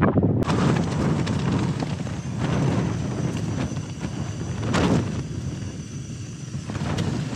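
Gusty mountain wind buffeting the microphone, a rough rumble that swells and eases, with a couple of brief stronger gusts.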